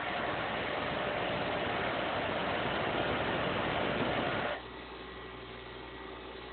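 Electric grinder grinding a pair of metal lock pick blanks, a steady grinding noise. About four and a half seconds in the metal comes off the wheel and the grinder runs on alone with a quieter hum.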